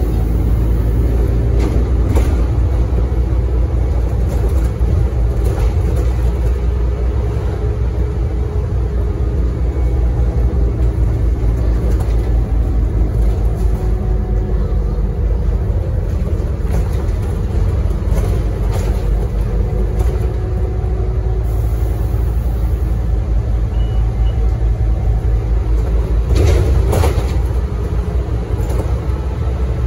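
Diesel engine of a Scania OmniCity double-decker bus idling with a steady low rumble while the bus stands at the stop. A brief louder noise comes near the end.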